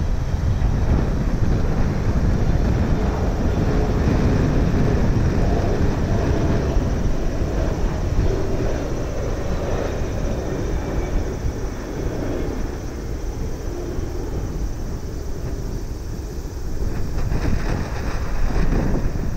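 Twin jet engines of a Boeing 777 airliner landing: a steady low rumble with a faint engine whine. It eases a little after touchdown and swells again near the end as the jet rolls out on the runway.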